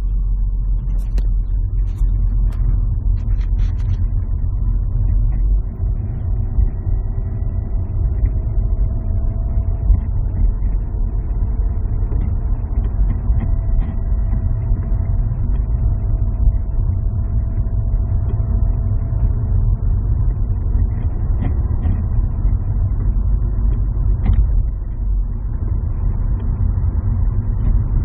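Subaru Legacy (BL5) on the move: a steady low rumble, with a faint whining tone that drifts up and down in pitch through the middle stretch.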